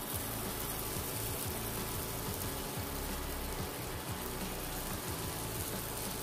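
Hot oil sizzling steadily as moong dal vadas deep-fry in a pan.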